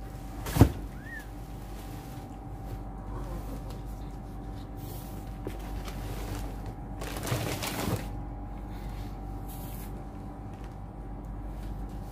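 Handling noises from a cardboard box and blanket: a sharp knock about half a second in, then rustling and scraping between about seven and eight seconds in, over a faint steady hum.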